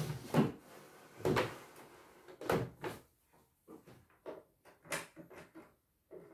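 Hard plastic knocks and scrapes as an embroidery machine's detachable embroidery unit is handled and fitted onto the machine's bed. There is a series of separate clunks, the loudest near the start.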